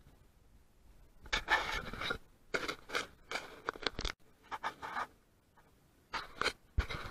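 Irregular bursts of scraping and rustling close to the microphone, like footsteps and clothing scuffing on a dry sandy slope. They start about a second in, with a short lull near the end.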